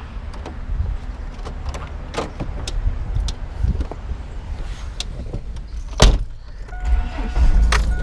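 A car's driver door being opened and then shut with one loud thump about six seconds in, with keys jangling and small clicks of handling before it. A steady high tone comes on just after the door shuts.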